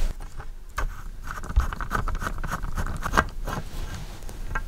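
Hex key turning a steel weight bolt out of the threaded insert in a pool cue's butt: a run of small metallic clicks and scraping, with a steadier rasp of the turning thread from about one to three seconds in.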